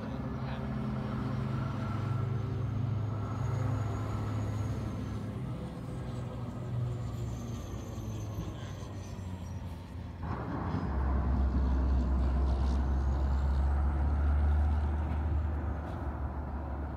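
Engine of a heavy vehicle running as a steady low drone. It suddenly grows louder and deeper about ten seconds in.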